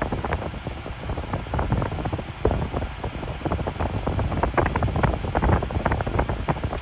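Wind buffeting a phone's microphone outdoors: a steady low rumble with irregular gusty pops that grow busier in the second half.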